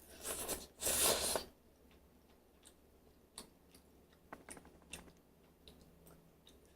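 Instant ramen noodles being slurped up in two quick noisy pulls, followed by soft chewing and mouth clicks.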